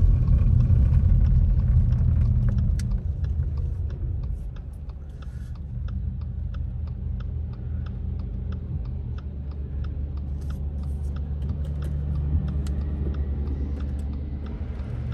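Steady low rumble of a car heard from inside the cabin as it waits at an intersection and turns on a wet road, with a regular light ticking, about two or three ticks a second, from the turn signal.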